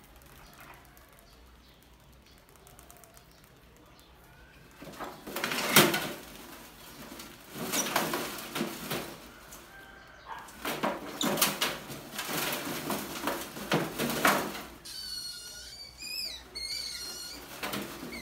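Rats scrabbling and knocking about inside a metal box trap under a wire-mesh lid, in loud irregular bursts through the middle. Near the end come a few high, wavering rat squeaks.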